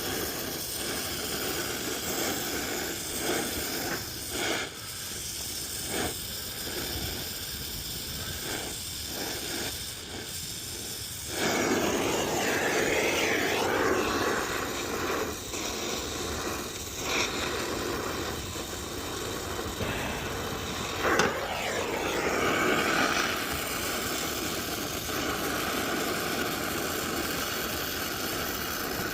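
Brazing torch flame hissing steadily on copper refrigerant line, starting suddenly about eleven seconds in, after a few light clicks. There is one sharp click partway through.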